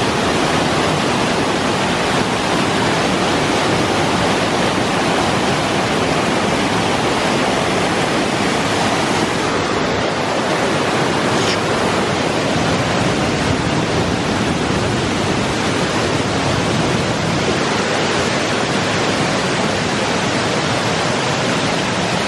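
Bond Falls, water cascading over wide rock ledges, making a loud, steady rush.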